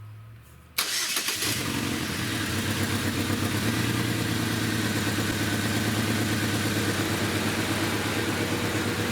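2010 Chevy Equinox's 2.4-litre four-cylinder Ecotec engine cranked and started about a second in, then running rough at idle with its mass airflow sensor unplugged and the air intake off. The uneven running is a misfire, with the code pointing to cylinder 3.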